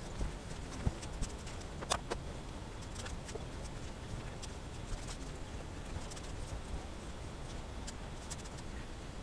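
A plastic spreader scraping and tapping as it works epoxy fairing filler onto a plywood boat's cabin side: scattered light clicks and scrapes over a steady low background rumble.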